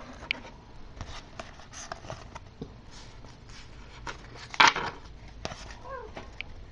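Trading cards and their packaging handled: scattered light taps and shuffling, with one louder rustle about four and a half seconds in.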